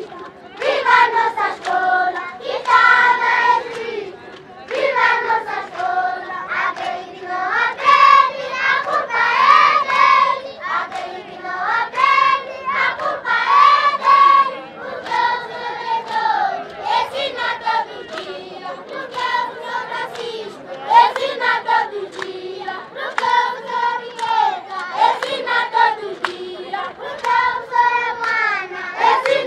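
A large group of children singing a song together in unison, in melodic phrases with short breaks between them.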